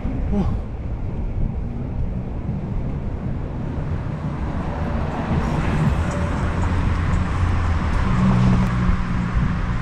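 A car approaching and passing close by, swelling in the second half, over a steady rumble of inline skate wheels rolling on asphalt and wind on the microphone.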